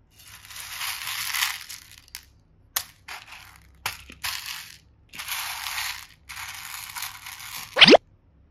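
A hand sifting and scooping through a bowl of small plastic pearl beads, the beads rustling and clattering in a series of bursts with short pauses between. Just before the end comes a brief, loud swish that sweeps in pitch.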